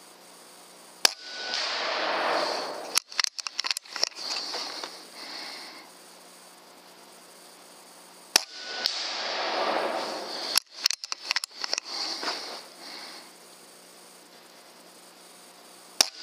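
Bigmax-X air rifle in .25 calibre (6.35 mm) firing handmade 2.9 g slugs: three sharp shots about seven seconds apart, the last at the very end. After each of the first two comes a rush of noise lasting about a second and a half, then a quick run of clicks.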